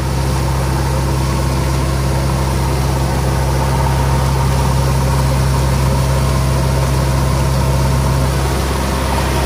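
JCB 3DX backhoe loader's diesel engine running steadily, its rear wheel turning in shallow river water and throwing up a constant splashing spray.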